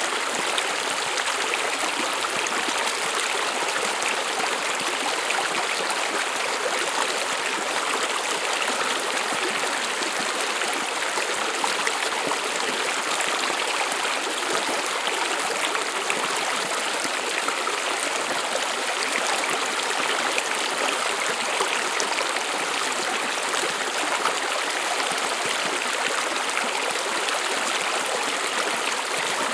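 A brook running steadily over stones, a continuous bubbling and trickling rush of water with many small splashes and no breaks.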